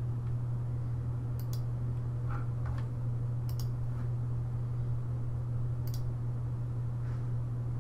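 Three sharp computer mouse clicks, about two seconds apart, over a steady low electrical hum on the recording.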